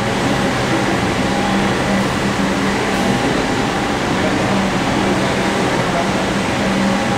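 Steady machine-shop noise: an even rush with a low hum underneath that wavers on and off.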